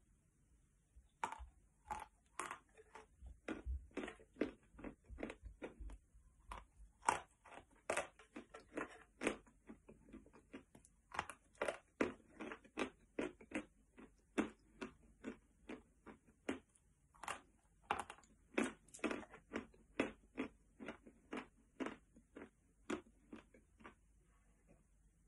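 White chalk being bitten and chewed close to the microphone: a run of crisp, dry crunches, roughly two a second, starting about a second in and going on with only short gaps.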